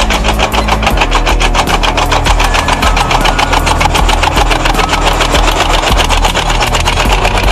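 RNLI Talus MB-H crawler launch tractor's diesel engine running as it drives past close by, with a fast, even knocking beat.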